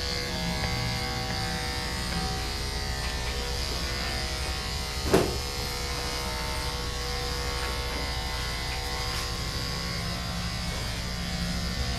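Corded electric dog clippers fitted with a 7 blade running steadily as they shave a dog's coat, with one short sharp knock about five seconds in.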